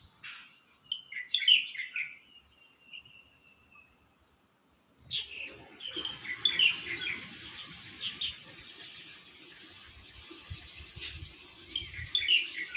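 A songbird calling in short chirping phrases, in several clusters with gaps between, a call the listener hears as saying "selamat pagi" (good morning). A steady background hiss comes in about five seconds in.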